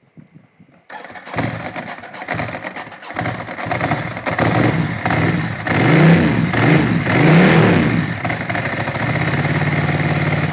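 Ducati SuperSport 1000 SS's air-cooled V-twin, breathing through stainless steel aftermarket cans, cranks on the electric starter for about two seconds before it catches. It is then blipped twice and settles to a steady idle. It is lazy to start after sitting unused for a while.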